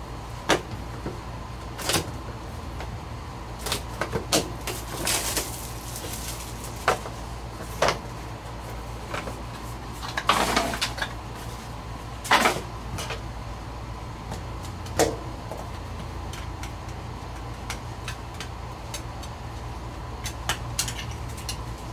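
Hands unwrapping and opening a shrink-wrapped cardboard trading card box: scattered plastic crinkles and rustles and light taps of cardboard, with a longer rustle around five seconds in and again around ten seconds in, over a steady low hum.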